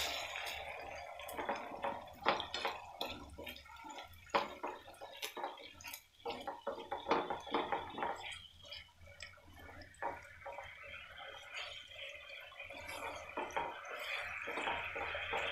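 Honey sauce in a non-stick pan heating up and starting to bubble, with irregular wet pops and clicks as a wooden spatula stirs through it.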